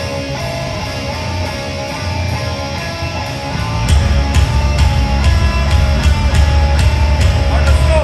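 Heavy rock band playing live through a stage PA: an electric guitar riff, then about four seconds in the bass and drums come in with a steady beat and the music gets louder.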